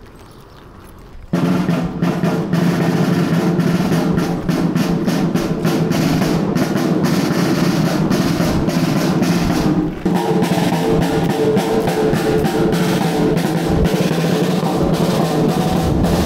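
Marching drum and bugle band playing: snare drums beating and rolling with bass drum and cymbals, under held bugle notes. It starts about a second in and falters briefly near the ten-second mark.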